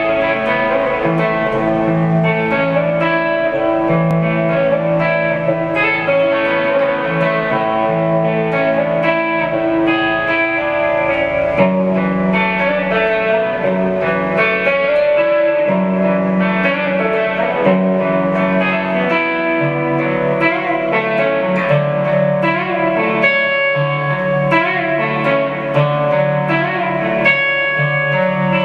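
Supro Black Holiday electric guitar played through an amp, slow chords and single notes ringing out and overlapping, washed in reverb from an Earthquaker Devices Avalanche Run pedal.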